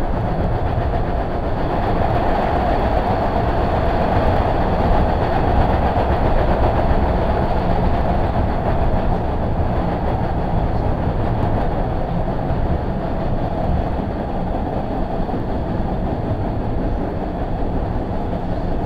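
An MBTA Red Line subway car heard from inside while it is moving: a steady rumble of wheels on rail with a mid-pitched roar that grows louder a couple of seconds in and eases off after about ten seconds.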